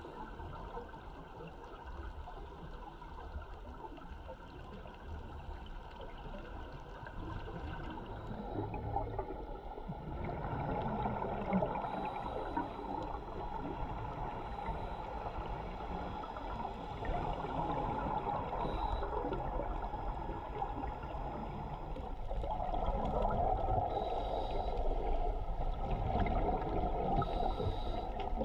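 Underwater sound of scuba breathing: regulator exhaust bubbles gurgling and rushing in uneven swells that grow louder from about a third of the way in.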